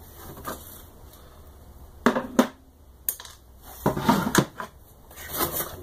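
Laser-cut wooden panels of a 3D printer frame kit being handled, clacking and knocking against each other: two sharp clacks about two seconds in, another a second later, a quick cluster of knocks around four seconds, then softer shuffling near the end.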